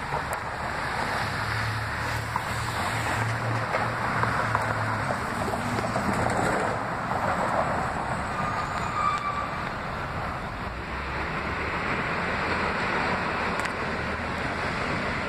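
Steady street traffic noise with wind buffeting the microphone, and a faint low hum in the first few seconds.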